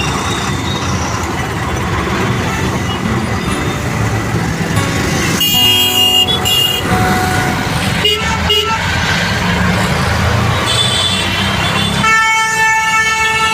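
Road traffic: a steady engine and road rumble, with vehicle horns honking. There is a long honk about five and a half seconds in, a couple of short ones around eight seconds, and another long honk near the end.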